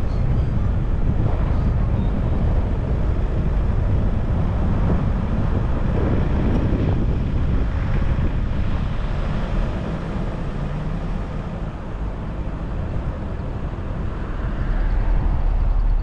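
Wind buffeting the dashcam microphone over the low rumble of a car driving on the road. The rumble eases about two-thirds of the way through, then builds again near the end.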